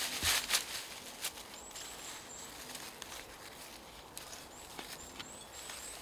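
A few short rustles and scrapes in the first second or so, from work on the forest floor by the seedling sack, then quiet woodland ambience. A small bird's thin, high call is repeated in two short series.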